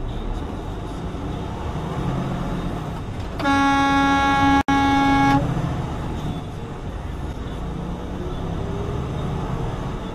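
Truck horn sounding one loud, steady blast of about two seconds, with a split-second break in the middle, over the semi's engine as it pulls away from a stop.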